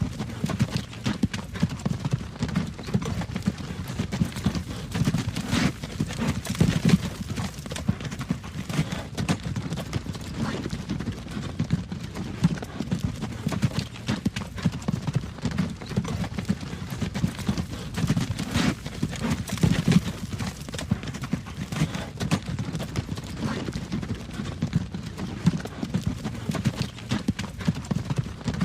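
Horse-drawn wagon travelling along a road: a continuous clip-clop of hooves over a steady low rumble from the wagon.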